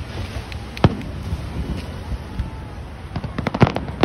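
Fireworks going off: one sharp bang about a second in, then a quick run of crackling bangs near the end.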